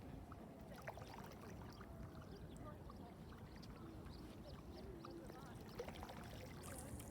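Wind rumbling on the microphone over a pond, with faint lapping water and many small, quick splashy ticks of mandarin ducklings pattering across the water surface.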